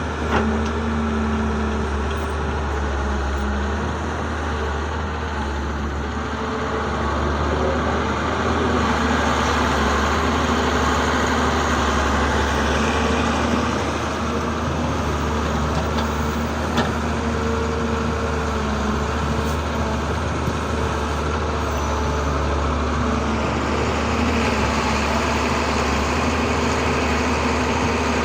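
Heavy diesel engine of an excavator and dump truck running steadily, with a low drone that rises and falls slightly as the machines work.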